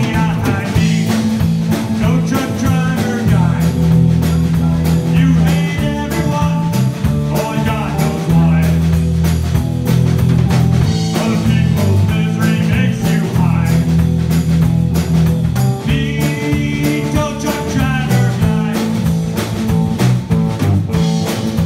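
Rock band playing a blues-tinged tune with guitar over a steady drum beat.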